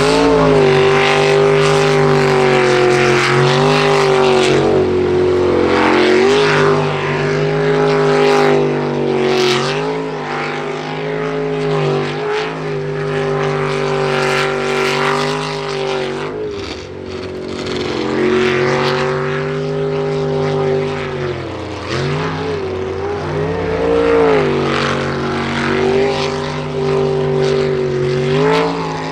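Jet sprint boat's engine running hard through a race run, its pitch dipping and climbing again several times as the throttle comes off and goes back on.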